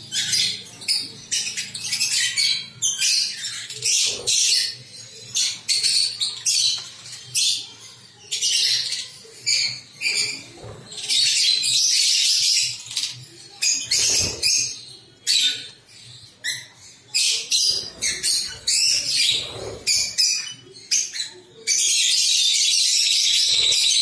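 Flock of pet lovebirds in an aviary chattering: many short, sharp, high-pitched chirps and squawks, one after another. For the last couple of seconds the calls run together into a louder, continuous high-pitched din.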